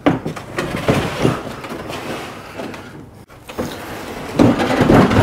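Hobie Pro Angler 14 kayak rolled on its wooden cart across concrete: caster wheels rumbling with uneven knocks and rattles, and a louder clatter near the end.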